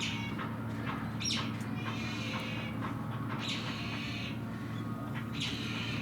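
Bottlenose dolphins giving short, high-pitched squealing calls, about six of them, over a steady low hum.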